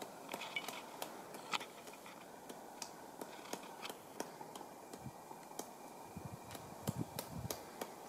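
Pileated woodpecker chipping at a dead tree trunk as it digs for food: irregular single sharp knocks, a few a second at most, louder and quicker together about seven seconds in.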